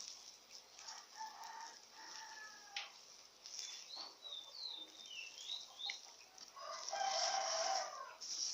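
A rooster crowing twice, once about a second in and again, louder, near the end, with short high bird chirps in between.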